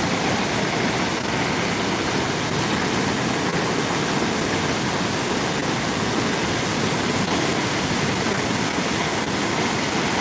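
Floodwater rushing past in a swollen river, a steady loud rush of water.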